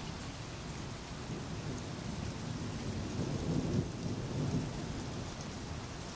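Steady rain falling. About halfway through, a low rumble of thunder swells and dies away.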